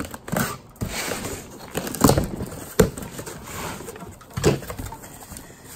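Hands rummaging through a cardboard box: crumpled packing paper rustling and things being shifted, with several sharper knocks and thumps.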